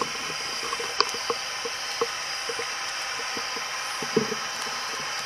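Steady static hiss with a few faint clicks and taps scattered through it.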